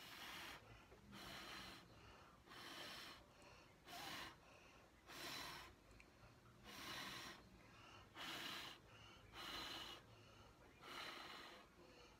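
A person blowing short, forceful puffs of breath by mouth onto wet acrylic paint on a canvas, pushing the paint outward in a Dutch pour. About nine breathy gusts come one after another, roughly a second or so apart.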